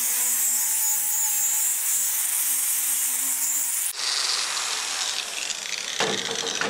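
Bosch angle grinder with a 60-grit flap disc grinding down a stick weld bead on carbon steel, a steady high hiss with a faint hum under it. About four seconds in the sound breaks off abruptly and a different, lighter hiss follows.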